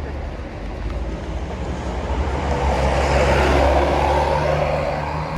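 A road vehicle passing close by: its engine and tyre noise swell to a peak about three to four seconds in and then ease off, over a steady low engine rumble. No horn sounds.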